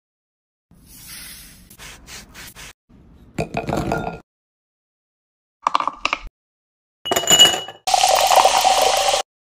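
Soft handling sounds, then ice and small fruit clinking into a glass tumbler with short ringing tones. Near the end, soda poured from a plastic bottle over the ice gives a steady fizzing splash for about a second and a half.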